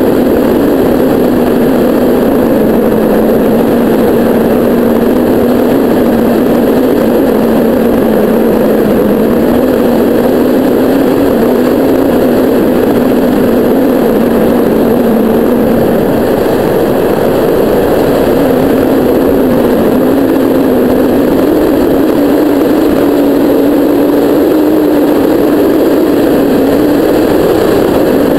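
Airflow rushing over a hang glider and its wing-mounted camera in flight: loud, steady wind noise with a low hum that drifts a little in pitch.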